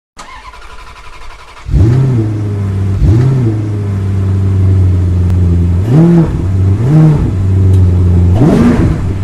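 A car engine starts with a quieter whirr and catches loudly about a second and a half in. It is then revved in five short blips, each rising and falling in pitch, and the last blip near the end goes highest.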